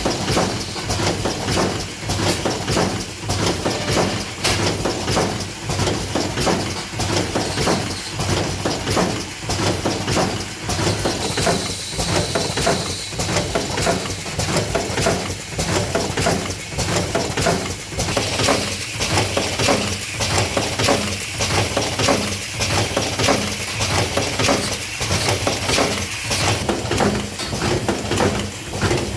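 Spout pouch spout-inserting and sealing machine running, its mechanism cycling in a steady repeating rhythm of short knocks and clinks. A higher hiss joins about two-thirds of the way through.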